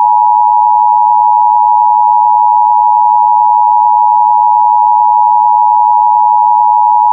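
Emergency Alert System attention signal: a loud, steady two-tone alert of 853 and 960 Hz sounding together without a break, the tone that heralds an emergency warning message.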